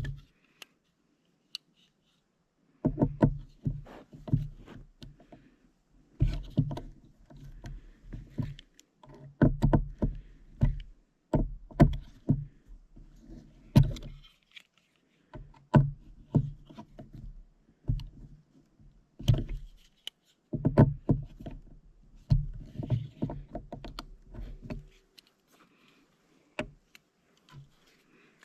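Multitool's folding Phillips screwdriver being twisted to drive a small drywall screw into wood: bursts of clicking and knocking a second or two long, with short pauses between.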